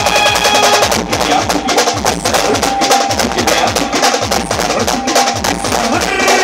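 A street band's drums played with sticks, beating a fast, dense rhythm over an amplified keyboard tune from a truck-mounted sound system.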